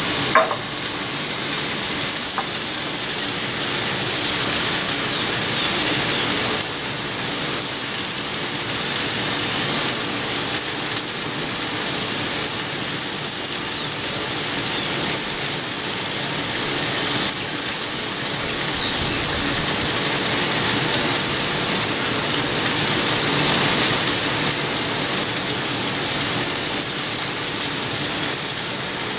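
Bone-in pork chops sizzling on a hot flat-top griddle: a steady frying hiss.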